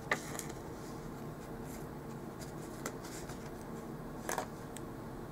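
Paper sticker sheets being handled and peeled on a desk: a few short scratchy rustles and clicks, just after the start, about three seconds in and a little after four seconds, over a faint steady hum.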